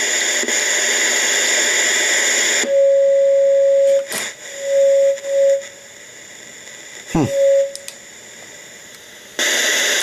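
Emergency alert radio's speaker hissing with FM static. The static cuts out after about three seconds, and a steady mid-pitched beep tone comes through, first held for about a second, then in shorter pieces, with a couple of clicks and a brief falling swoop. The static hiss comes back near the end.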